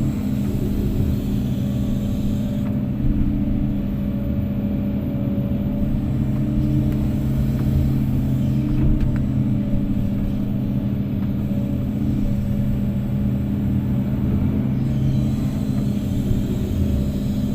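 Heavy diesel engine running steadily at constant speed, a deep even hum with no revving.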